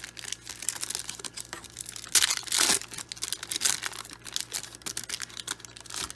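Foil wrapper of a 1995 Upper Deck SP trading-card pack crinkling and tearing as it is ripped open by hand, with a dense run of crackles and the loudest rip about two seconds in.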